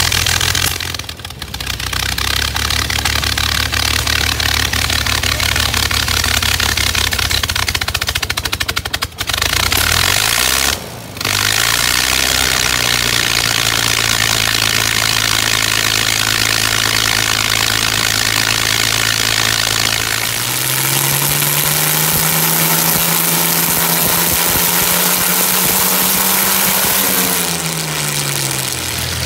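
Jaguar 5.3 V12 engine turning a 90-inch propeller on a test stand, running steadily. About two-thirds of the way through it is revved up, held at higher speed, then throttled back down near the end, after sitting unused for many years.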